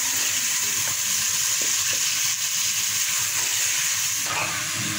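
Chopped tomatoes and onions sizzling steadily in hot oil in a pan, stirred with a wooden spoon: the tomatoes have just gone into the fried onions for the masala base.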